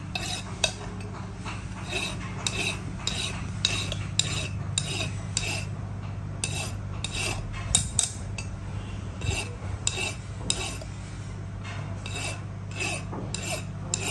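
Metalwork on a steel blade: short metallic clinks and scrapes about twice a second, unevenly spaced, over a steady low hum.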